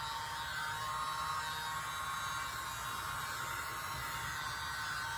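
Mini handheld electric blower running steadily, a small-motor whine over rushing air, held over wet acrylic paint to blow it out into a bloom.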